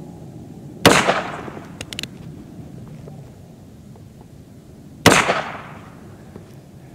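Two shots from a Colt Frontier Scout .22 LR single-action revolver, about four seconds apart, each a sharp crack with a short fading tail. A few light clicks come between them.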